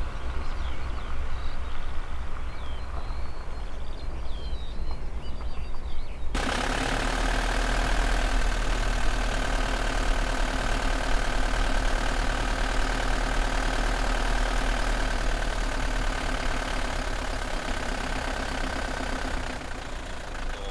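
Delivery van engine and tyres on a dirt road with birds chirping, then about six seconds in a sudden change to the steady drone of the engine and road noise heard from inside the van's cab.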